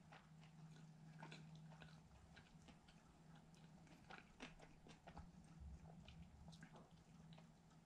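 Faint chewing of a fried chicken sandwich: irregular small crunches and mouth clicks, over a steady low hum.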